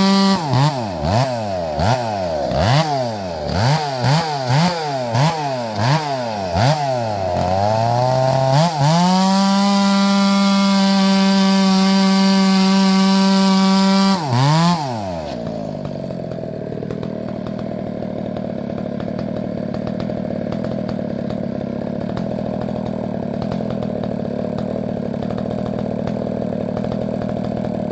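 Two-stroke chainsaw running square-ground chain while bucking firewood: the engine revs swing down and back up about once a second for the first several seconds, then hold steady at full throttle. About 15 seconds in it drops off and settles to a steady idle.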